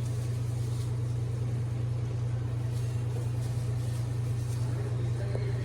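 A steady low mechanical hum with a constant rumble, unchanging throughout.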